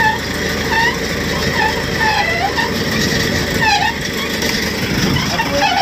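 Fishing boat's inboard engine running steadily, a dense low rumble, with short high chirping sounds repeating over it about every half second.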